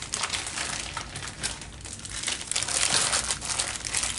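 Packaging crinkling and rustling as it is handled, in irregular bursts of crackle that are loudest about three seconds in.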